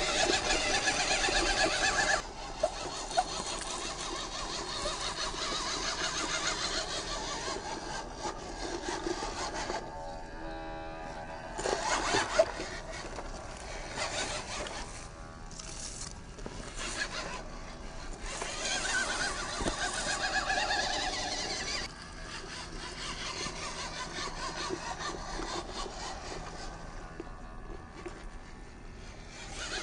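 A small electric RC crawler's 260 brushed motor and gearbox whining as it drives over rock and dirt, the sound changing abruptly between shots about two seconds in and again near the twenty-two-second mark.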